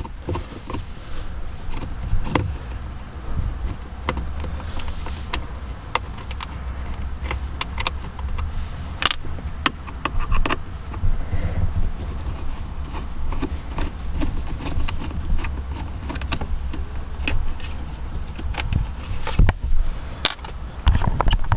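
A No. 2 Phillips screwdriver backing out the two small screws that hold a car's console cup holder, with scattered clicks and light metallic clinks over a steady low rumble of hands handling near the microphone.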